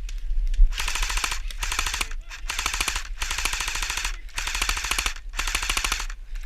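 Airsoft electric gun firing several short full-auto bursts of rapid clicking shots, with brief pauses between bursts.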